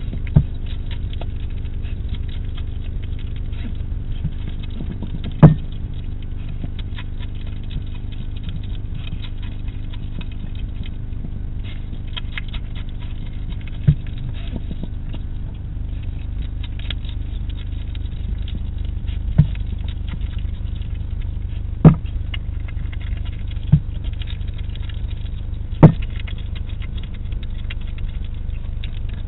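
A hedgehog eating from a dish, with many small wet clicks and crunches of chewing and about seven sharper knocks scattered through, over a steady low hum.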